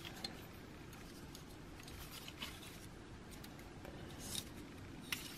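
Faint handling of the Fansproject Revolver Core plastic transforming figure: plastic parts rubbing, with a few light scattered clicks as its joints and panels are moved.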